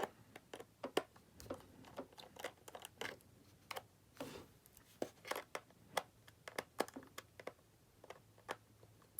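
Small screwdriver clicking and scraping as it works tiny screws out of a 2007 MacBook Pro's battery bay: a string of irregular light clicks and ticks, with short scratchy scrapes between them.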